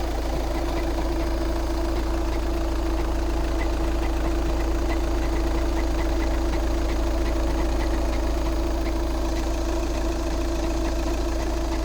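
Skoda Octavia RS TDI diesel engine idling steadily with a light, regular knock from a worn dual-mass flywheel. The knock went away once the flywheel was replaced.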